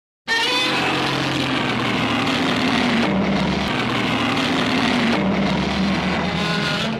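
A Godzilla sound effect from the films: one harsh, continuous sound with a steady low pitch that cuts in abruptly and holds for about six and a half seconds before fading out.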